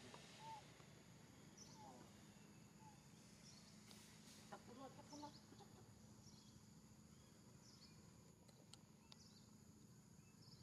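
Near silence: quiet outdoor background with a few faint, short chirps and calls scattered through.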